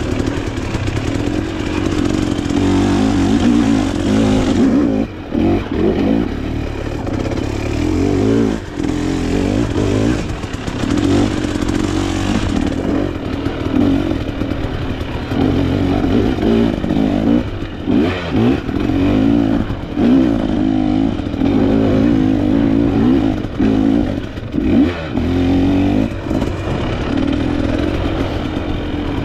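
Dirt bike engine being raced off-road, revving up and easing off again and again, with clatter and knocks from the bike through the rough terrain.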